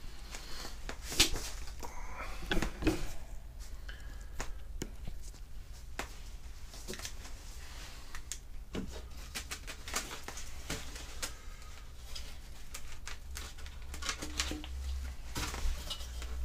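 Scattered light clicks and knocks of hand work on the car's front end, handling a torch and the polystyrene foam bumper absorber, over a steady low hum.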